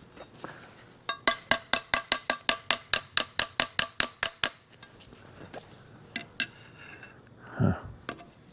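Rapid run of about twenty light metal-on-metal taps with a ringing tone, about six a second for three seconds. A few scattered clicks follow, then a short dull low sound near the end.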